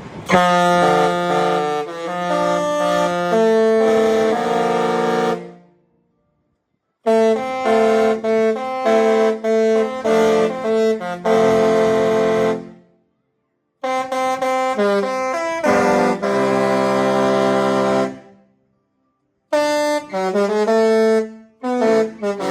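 Disney Cruise Line ship's musical horn playing a tune as a series of loud held chords, in four phrases of a few seconds each with abrupt silent breaks between them.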